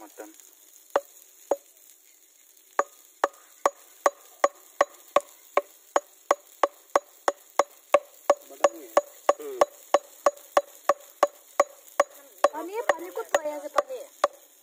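Steady chopping: a blade striking a wooden board about two to three times a second. Two single strikes come first, then a regular run of chops from about three seconds in.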